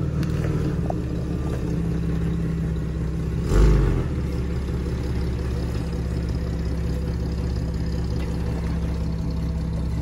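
A lifted Jeep's engine running steadily at low revs as it crawls slowly over off-camber rocky ground, with one loud thump about three and a half seconds in.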